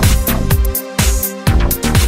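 Electronic dance music with a steady kick-drum beat and hi-hats.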